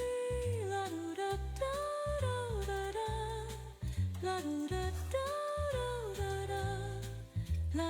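Background music: a slow jazz-style song with a wordless melody that glides between long held notes over a stepping bass line.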